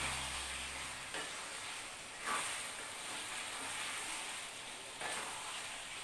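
Masala liver (kaleji) sizzling as it is stir-fried in an aluminium kadai, with a steady hiss and a wooden spatula scraping against the pan a few times.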